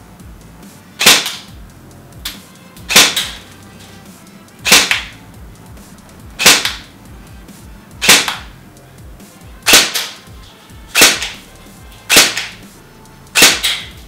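G&G ARP-9 airsoft electric gun firing nine single semi-automatic shots, about one every one and a half seconds and a little quicker near the end. Each shot is a short, sharp report that buzzes like an angry flock of bees.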